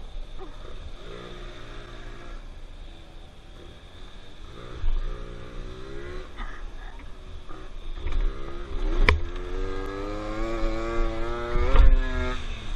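50cc two-stroke scooter engine (MBK Booster with a Polini 50 kit) under way, dropping off and picking up again. It then revs with a steadily rising pitch over the last few seconds. A low wind rumble runs underneath, and a single sharp click comes about nine seconds in.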